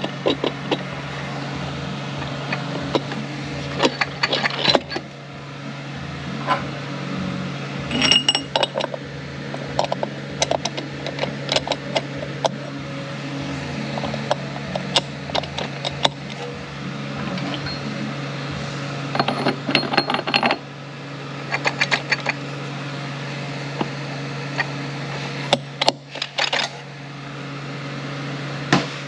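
Metal clinking and ticking as 10R80 automatic transmission gear-train parts are worked by hand down into the clutch pack, splines and steel parts knocking against each other as they are turned and jiggled into place. A steady low hum runs underneath.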